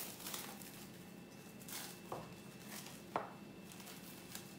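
Faint kitchen handling sounds: soft rustling of food and utensils, with a few light clicks, the sharpest about three seconds in.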